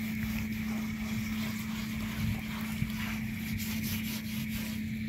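Hands scrubbing and sloshing water inside a large iron pan set over a wood fire, over a steady low hum.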